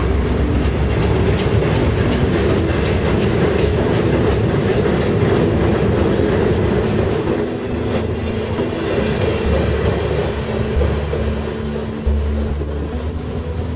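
Freight cars of a maintenance-of-way train rolling past at close range: a steady rumble with wheel clatter over the rails. It eases off after about eight seconds as the last flatcars go by.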